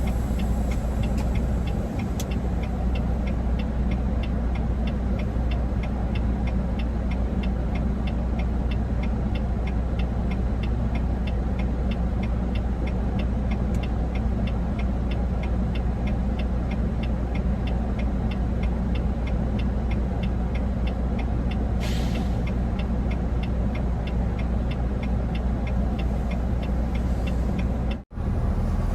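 Steady low engine and road drone inside a truck cab while driving, with a faint even ticking about three times a second. A short air hiss sounds about three quarters of the way through, and the sound cuts out for a moment near the end.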